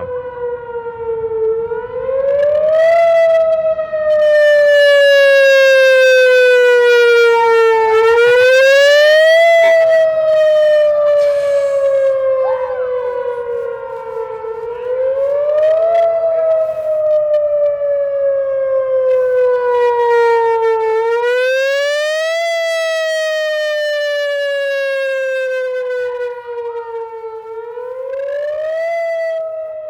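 Rotating outdoor civil-defense warning siren sounding during its scheduled test. It gives one loud tone that climbs quickly in pitch and then sinks slowly, about every six and a half seconds, growing louder and fainter as the horn turns.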